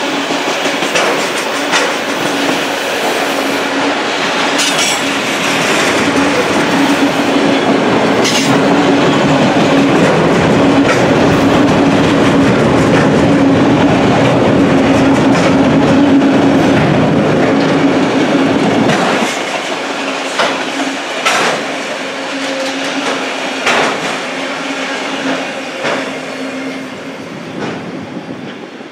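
Auto rack freight cars rolling past at speed: a loud, steady rumble with irregular clacks of wheels over rail joints and a steady droning tone. The sound drops about two-thirds of the way in and fades as the last car goes by near the end.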